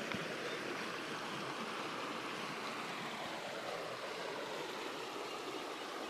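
Water of a stream running, a steady even rush.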